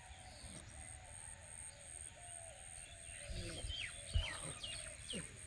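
Birds chirping, with a cluster of quick falling chirps in the second half, and a single low thump about four seconds in. A steady high whine pulses about twice a second underneath.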